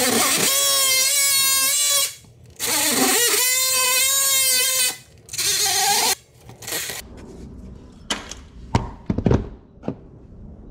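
Cordless oscillating multi-tool cutting an outlet box opening in drywall: three runs of a loud, high buzz, the longest a little over two seconds. A few knocks follow from about eight seconds in.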